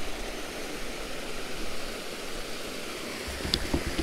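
Steady rush of white water spilling over a small waterfall into the creek. A brief low rumble and a faint click come near the end.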